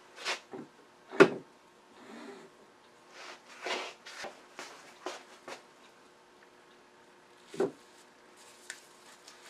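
Wooden knocks and thumps as a glued-up wooden block is handled and set down on a metal lathe bed, the loudest about a second in and another near the end, with light handling rustle between them.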